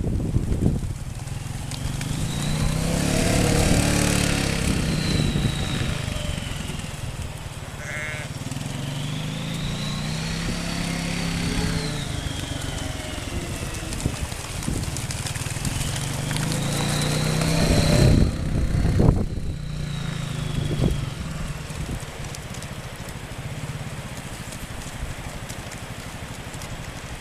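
Quad bike engine running and revving up and back down three times, with sheep bleating among it.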